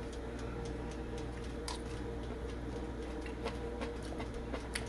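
Steady low room hum with a few faint, sharp clicks scattered through it.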